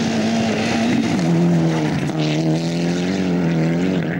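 Rally car engine revving hard as the car passes on a dirt stage. The pitch climbs under acceleration and dips briefly about one and two seconds in, at the gear changes.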